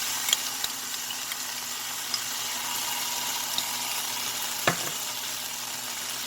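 Sauce sizzling in a pan of hot oil, where ginger and garlic were fried and soy, tomato and hot chili sauces have just been added. A steady sizzle, with a few light clicks and one sharper knock a little under five seconds in as the pan is stirred.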